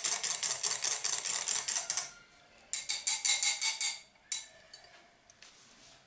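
Wire whisk beating a thin egg batter in a glass measuring jug, its wires clicking rapidly against the glass. The strokes run for about two seconds, pause briefly, and run for about another second; they are followed by one sharp tap.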